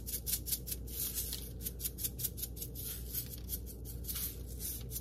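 Rainbow sprinkles rattling inside a small shaker jar as it is shaken over cookie dough, a quick run of small ticks several times a second, over a faint low hum.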